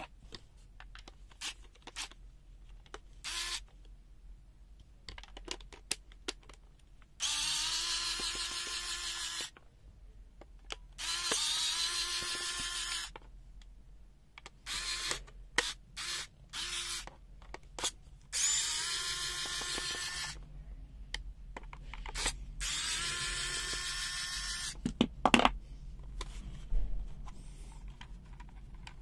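Small electric screwdriver running in four runs of about two to three seconds each, a steady whine that rises briefly as each run starts, backing out the screws of a multimeter's back case. Short clicks and knocks of handling come between the runs.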